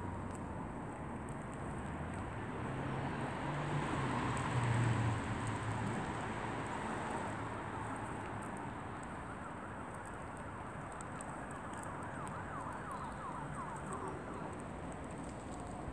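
Traffic noise with a siren wailing, its pitch falling at the start. A vehicle's engine swells and passes about five seconds in.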